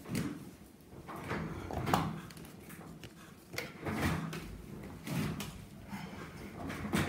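Irregular handling noises: a few knocks and short rustles as small objects are picked up, moved and set down on a tabletop.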